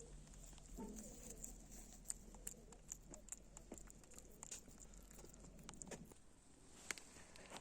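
Near silence with faint, scattered light clicks and taps, irregular and a few each second.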